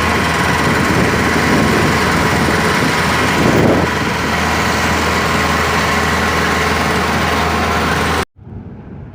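An engine running steadily and close by, a constant hum with a steady whine over it. It stops abruptly about eight seconds in, leaving a much quieter background.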